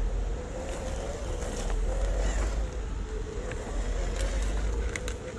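WPL C24 RC crawler's electric motor and gearbox whining at a steady, slightly wavering pitch as it crawls over stones, with a few light clicks of tyres on rock in the second half. Low wind rumble on the microphone underneath.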